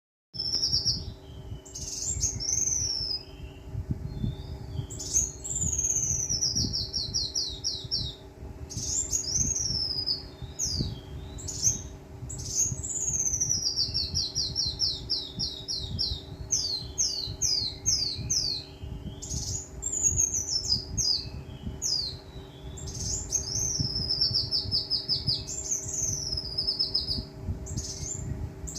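Caged sunbird (kolibri wulung) singing: phrases of high, fast trills that slide downward in pitch, repeated every second or two, over a steady low hum.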